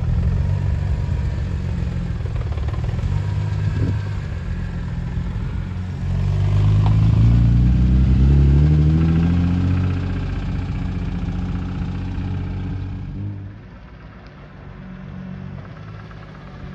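BMW S54 straight-six of a 2002 E46 M3 running, its revs rising for a few seconds about six seconds in, then settling and going quieter near the end. The engine is freshly rebuilt and has a noise that the owners suspect comes from the timing chain, a tensioner or a guide.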